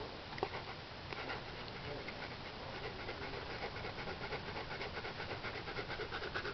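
Siberian Husky x wolf hybrid dog panting in a quick, even rhythm, growing louder toward the end.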